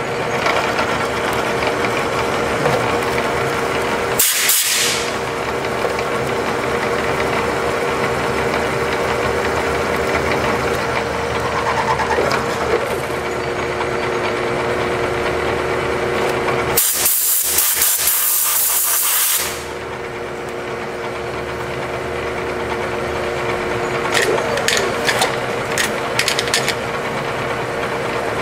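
Vertical milling machine running steadily with a steady hum while its end mill cuts a round workpiece clamped in a vise. Two hissing blasts of compressed air from a blow gun clear the chips: a short one about four seconds in, and a longer one of two to three seconds around the middle. A few light clicks come near the end.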